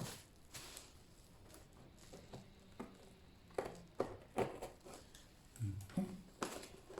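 Cardboard box and packaging being handled and opened by hand: faint rustling with scattered light knocks and clicks, busier from about three and a half seconds in.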